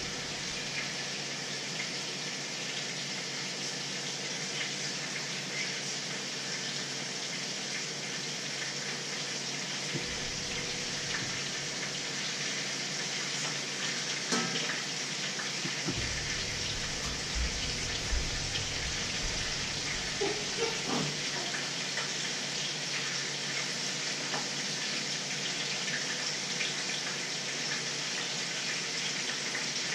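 A steady, even hiss, with a few light knocks of cookware on the stove around the middle.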